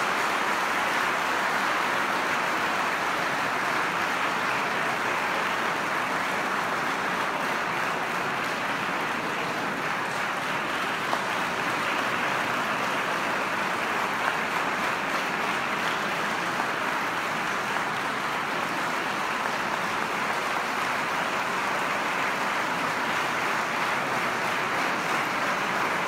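Audience applauding steadily in a large stone cathedral.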